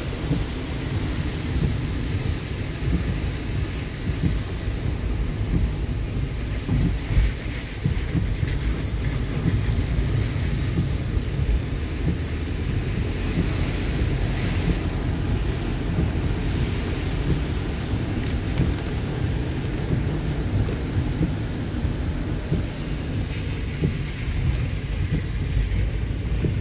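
Steady low rumble of a Toyota car driving on a wet road, heard from inside the cabin, with a faint hiss of tyres and rain over it.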